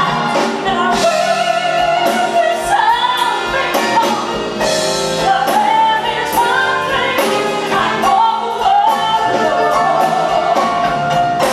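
Female singer holding long, sliding notes over a live band accompaniment.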